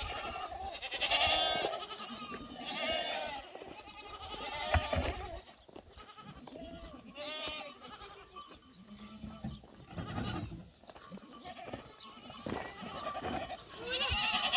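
Small livestock bleating: repeated wavering bleats about a second long, coming every second or two, some higher and some lower in pitch, as if from several animals.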